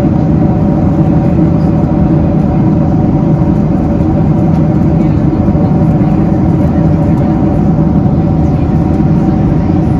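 Steady cabin noise of a Boeing 767-300ER in cruise: an even rush of air with the drone of its General Electric CF6 engines, holding a few steady tones.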